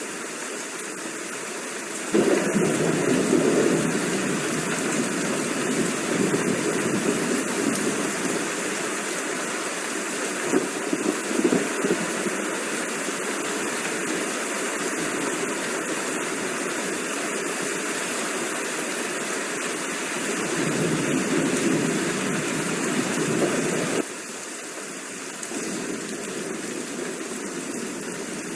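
Steady rain hiss. A deeper rumble of thunder comes in suddenly about two seconds in, swells a few times and cuts off sharply near the end.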